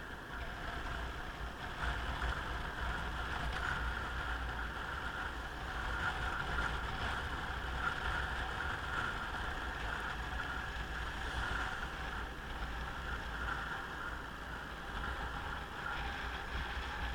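Motorcycle riding along a road, its engine running steadily under the rush of wind and road noise on the onboard microphone, swelling slightly now and then.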